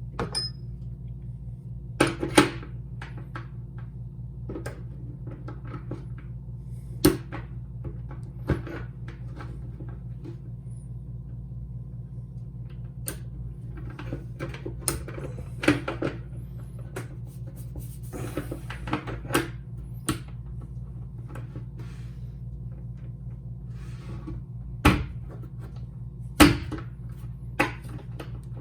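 Scattered clicks and knocks of a door handle and latch mechanism being handled and fitted back together, over a steady low hum.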